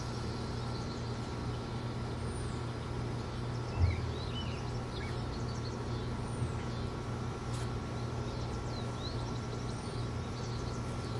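Outdoor ambience: a steady low hum under a steady insect drone, with scattered short bird chirps and a soft thump about four seconds in.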